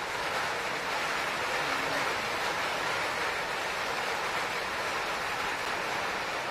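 Steady, even hiss of water, with no separate drops or strokes standing out.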